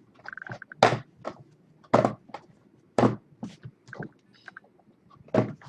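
A cardboard hobby box of trading-card packs being opened and handled, giving four sharp knocks about a second apart with lighter clicks and rustles between them.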